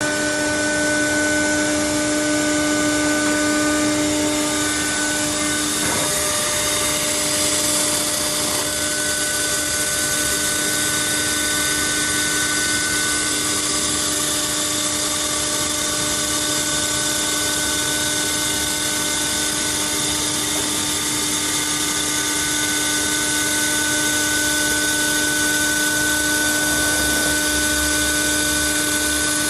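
300-watt Rofin CO2 laser cutting machine running while machining 6 mm clear acrylic: a steady machine hum with several held tones over a continuous hiss.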